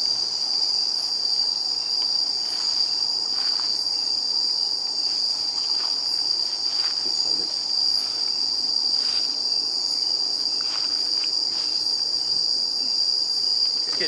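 Night insects in the forest keep up a steady, unbroken high-pitched chorus, with a few faint soft clicks underneath.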